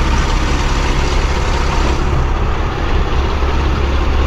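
Heavy diesel truck engine idling with a steady low hum.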